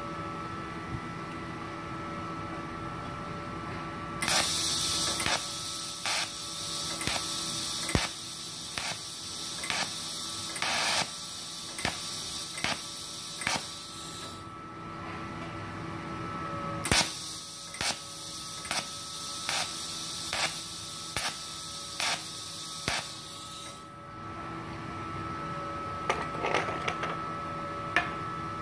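TIG (argon) welding arc from a Multipro TIG 200A-SA on stainless steel tube: a loud, steady high hiss with a regular tick about twice a second. It burns for about ten seconds, stops, then strikes again for about seven seconds.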